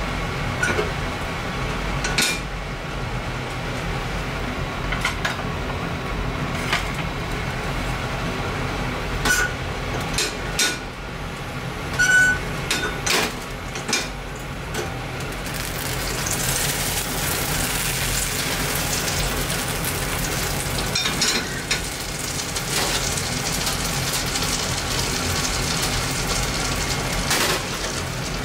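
Fat sizzling in an iron frying pan on a gas burner, with light metal clinks of utensils against the tray and pan through the first half. The sizzle grows much stronger a little over halfway through as the pan gets hot.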